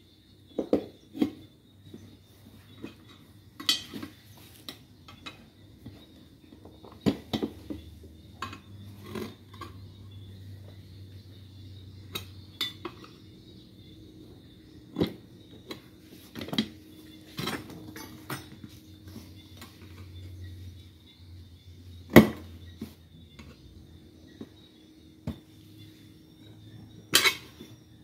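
Steel tyre lever clinking and knocking against a motorcycle's five-spoke cast wheel rim as the tyre bead is pried back on. The knocks come irregularly, a few seconds apart, with one sharper knock about two-thirds of the way through.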